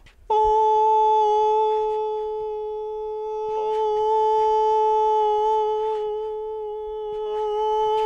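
A man's voice holding one steady high sung note in an anechoic chamber, dry with no echo. It grows quieter and louder again twice as he turns toward the sound-absorbing foam and back.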